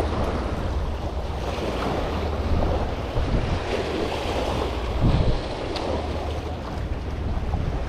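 Wind buffeting the microphone with a steady low rumble, over the wash of surf against a jetty.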